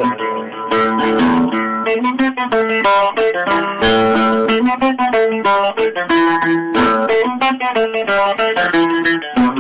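Instrumental music led by a plucked lute playing a quick melody of short, separate notes without a break.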